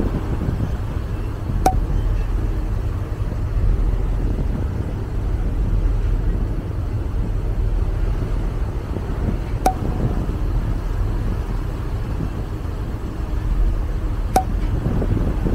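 Steady low rumble of a ferry under way, its engines and the wind. Three short, sharp clicks cut through it: one a couple of seconds in, one about two-thirds of the way through, and one near the end.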